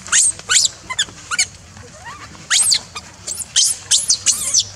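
Newborn macaque screaming in distress: about a dozen short, shrill squeals that sweep sharply upward in pitch, with a pause of about a second in the middle.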